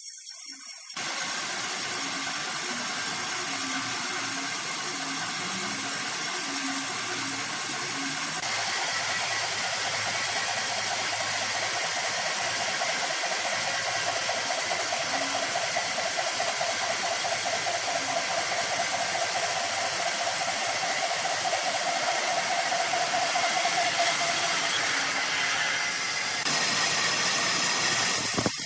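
Sawmill machinery cutting timber: a steady, harsh saw noise with a faint running tone under it. The sound changes abruptly a few times, as from cuts between shots.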